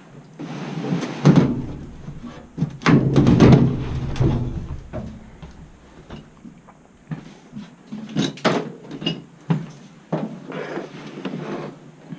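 Knocks, clunks and scraping of objects being handled and set down, in four separate bursts of activity.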